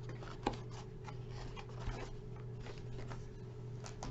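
Light handling noises: faint rubbing and rustling as an item and its packaging are moved about, with a small knock about half a second in, over a steady low hum.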